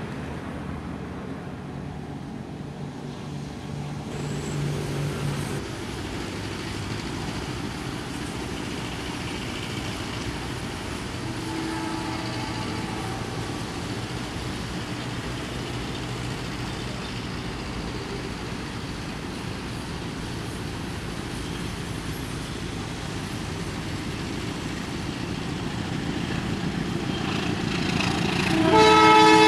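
Steady outdoor background of distant road traffic. In the last second a diesel locomotive's horn starts, a loud multi-tone chord, as the train approaches.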